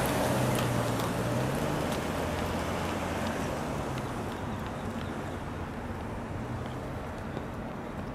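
An SUV driving slowly past close by: engine hum and tyre noise that fade away over the first two seconds, leaving a steady hiss of background noise.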